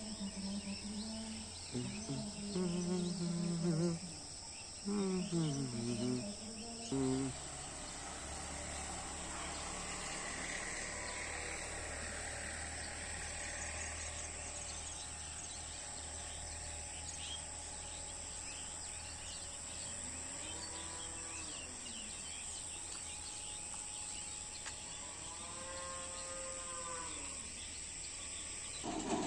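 Many small birds chirping in quick overlapping notes over a steady high insect drone. A voice is heard during the first few seconds, and two drawn-out calls that rise and then fall come later on.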